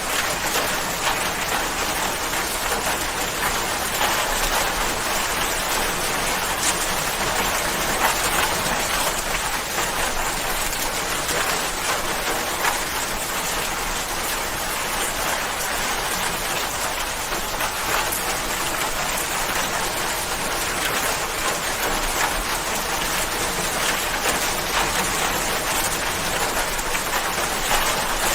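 Steady rain falling, a dense even hiss of drops with many small drop pattering on a surface.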